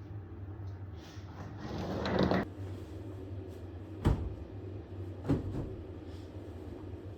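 Two sharp knocks about a second apart, after a rushing noise that builds for about a second and cuts off suddenly, over a steady low hum.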